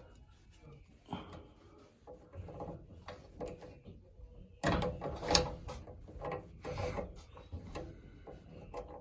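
Irregular knocks, clicks and rubbing from hands working on a bathroom exhaust fan housing, with a busier stretch of handling about halfway through. A faint steady hum comes in about two seconds in.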